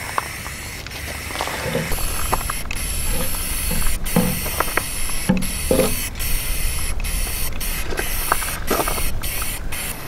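Aerosol can of spray lacquer hissing through a trigger-grip spray-can adapter, with many brief breaks as the trigger is let off and pressed again. Wind rumbles on the microphone underneath.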